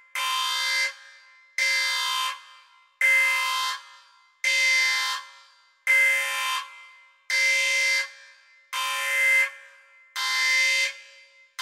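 A repeating electronic alarm tone: a hard-edged, horn-like blast about once every second and a half, each starting abruptly and fading away before the next.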